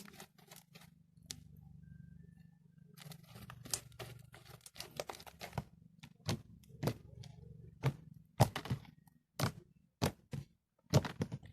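Slime being mixed and squished by hand, giving irregular sticky clicks and crackling pops as it is folded to blend its colour.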